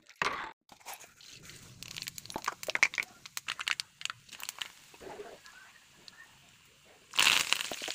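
A run of light crackles and clicks, then, about seven seconds in, a sudden loud sizzle as hot oil with dried red chillies spits for the tempering (tadka) of a gram-flour and yogurt curry.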